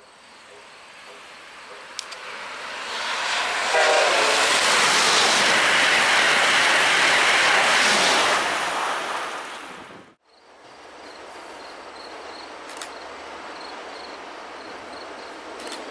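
A new Amtrak Acela high-speed trainset (Avelia Liberty) rushing past at speed. The rush builds and is loud for about four seconds, with a short horn note as it arrives, then fades away. After a sudden break, a quieter, steady rumble comes from an MBTA commuter train approaching.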